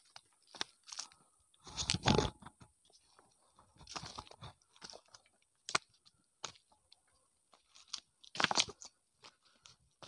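Footsteps crunching and scuffing on a loose, stony dirt path, uneven steps, with louder scuffs about two seconds in and again near the end.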